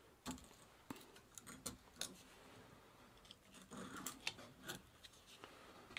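Pocket knife blade scraping and clicking against the gritty, notched cone of an old bicycle bottom bracket: a faint scatter of small metal ticks and scrapes, with a scratchier stretch about four seconds in.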